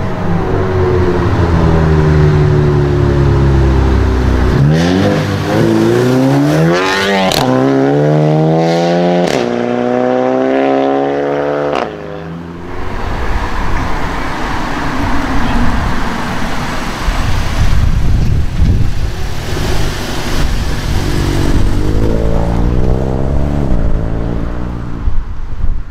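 Volkswagen Golf 7 GTI 2.0-litre turbocharged four-cylinder engines accelerating hard from the roadside: the revs climb steeply, drop sharply with a crack from the exhaust at each of two upshifts, then climb again. After a break comes engine and road noise from another Golf pulling away, with a further rising acceleration near the end.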